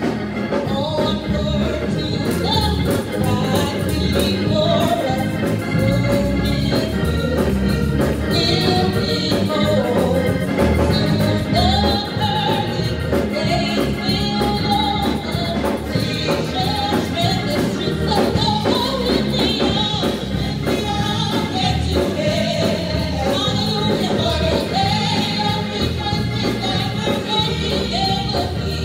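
Gospel music: voices singing a melody over instrumental accompaniment with a steady beat.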